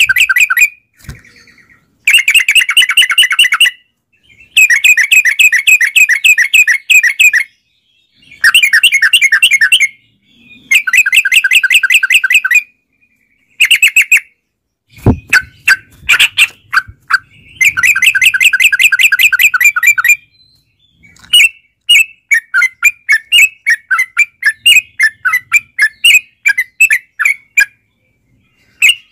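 Yellow-vented bulbul (trucukan) singing: fast bubbling chattering phrases of one to two seconds, repeated with short gaps. After about two-thirds of the way it breaks into a looser run of separate quick chirps.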